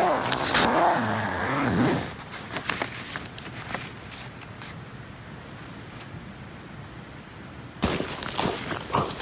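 Zipper on a OneTigris tent's carry bag being pulled open: a rasping buzz that rises and falls in pitch with the speed of the pull, over the first two seconds. Faint rustling and ticks of the bag and a paper sheet being handled follow, and a few sharp thumps come near the end.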